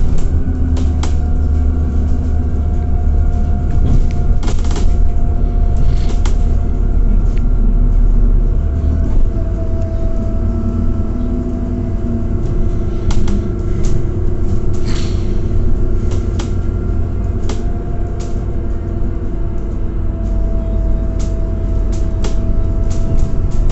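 Scania Citywide 12LF CNG city bus running on its compressed-natural-gas engine, heard from inside the passenger cabin: a steady low engine and drivetrain rumble with a faint whine above it. The rumble shifts about nine seconds in, and short clicks and knocks come every second or so.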